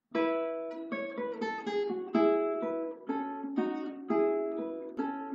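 Guitar music: a melody of single plucked notes, two or three a second, each ringing and dying away.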